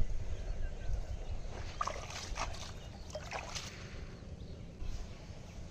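Shallow ditch water splashing and sloshing as a catfish is handled at the water's edge, with a cluster of short splashes about two to three and a half seconds in.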